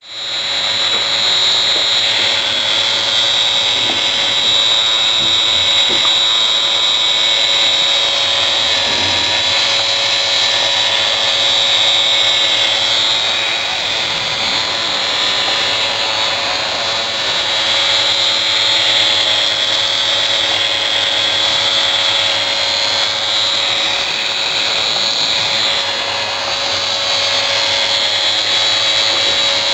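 Small electric motor and plastic gearing of a K'NEX robot running, a steady high-pitched whine with a whirring rattle underneath that holds without a break.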